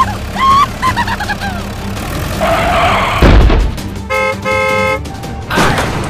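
Toy-vehicle sound effects: a car horn honks twice, a short toot and then a longer one, after a rising engine-like rev that ends in a low thud; short chirping sounds come at the start.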